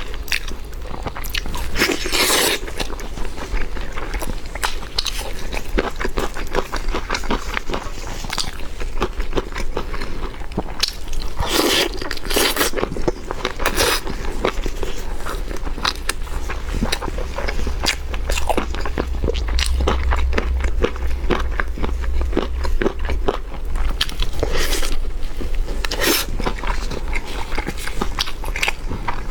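A person biting and chewing crunchy food up close, with dense, irregular crunching clicks and a low steady hum underneath.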